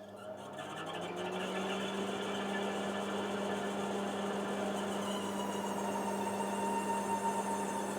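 Air purifier's fan motor starting up, rising in pitch over the first second or two, then running with a steady hum and whine: the abnormal noise the owner puts down to deteriorated grease inside the motor's bearings.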